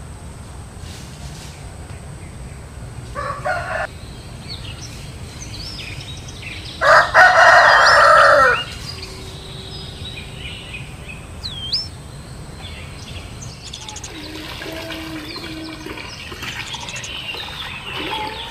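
A rooster crowing: one loud, long crow about seven seconds in, after a shorter call a few seconds earlier. A few small bird chirps are scattered around it.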